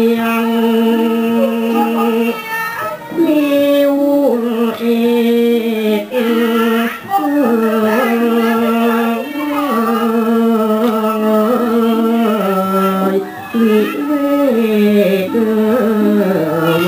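Thai classical music for the puppet play: a sung melody of long, held notes that slide between pitches, over instrumental accompaniment.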